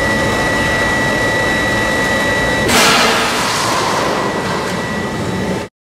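Fire-test furnace running steadily with constant high whistling tones. About three seconds in, the heated reinforced concrete bearing wall gives way by out-of-plane buckling: a sudden loud burst of hissing noise that fades over the next two seconds.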